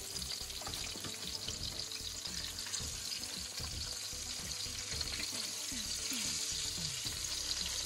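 Floured trout fillets sizzling steadily in hot fat in a frying pan as they are turned over.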